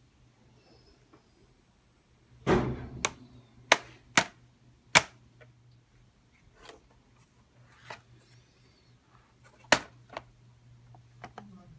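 Hands working on a laptop: a dull thud about two and a half seconds in, then a quick run of sharp plastic-and-metal clicks, with one more click near the end. A faint steady hum runs underneath.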